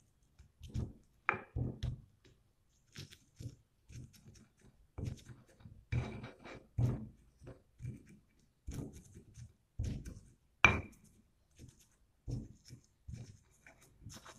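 Stone pestle crushing and grinding whole coriander seeds and spices on a flat stone mortar (cobek): a run of irregular grinding strokes, with a few sharp stone-on-stone clacks that ring briefly, the loudest near eleven seconds in.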